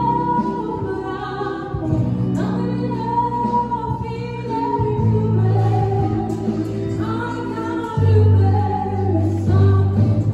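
A woman singing through a handheld microphone and a small portable amplifier, her voice carried over accompaniment of long held low notes that change every few seconds.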